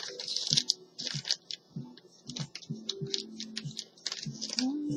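Quick, irregular small clicks and scrapes of a screwdriver working the tiny screws out of a laptop hard drive caddy.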